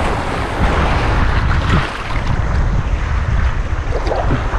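Strong wind buffeting the microphone: a steady, loud low rumble of noise.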